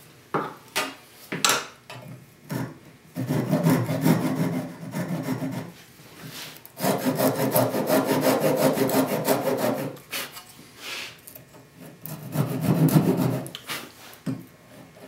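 Japanese pull saw cutting sipo (African mahogany): a few separate strokes, then three longer runs of fast sawing strokes with short pauses between them.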